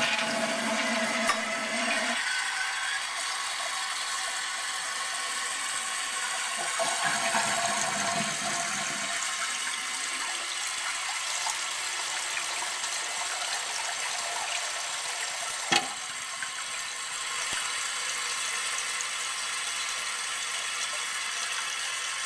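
1960s American Standard Cadet toilet tank refilling after a flush, water hissing steadily through the fill valve, with a heavier rush in the first couple of seconds and again briefly later. A single sharp click sounds about 16 seconds in.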